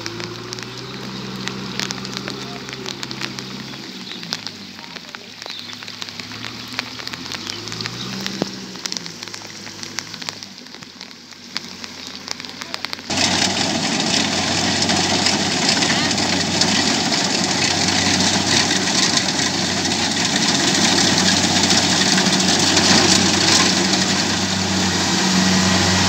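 A tractor engine labouring and revving up and down as it drags a trailer through a flooded paddy, over a crackling hiss of rain. About halfway it gives way to the louder, steady running of a Kubota DC105X rice combine harvester's diesel engine and threshing machinery as it cuts rice.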